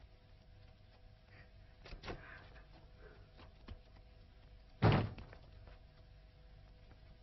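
Door banging: a thump about two seconds in, a few small knocks, then one loud bang about five seconds in, over a faint steady hum.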